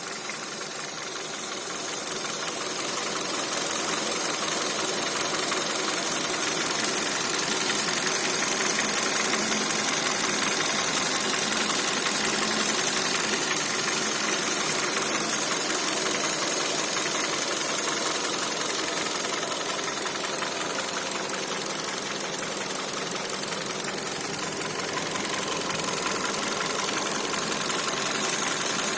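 Kia Cerato 1.6 engine running steadily with a fast, continuous knocking. The owner cannot tell whether it comes from the timing chain or the pistons.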